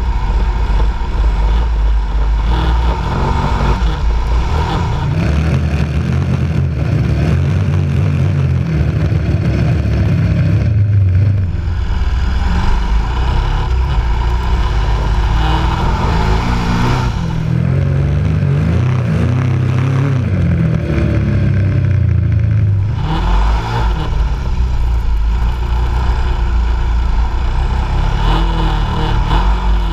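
KTM 1190 Adventure R's V-twin engine pulling through deep sand, its revs rising and falling several times as the throttle is worked.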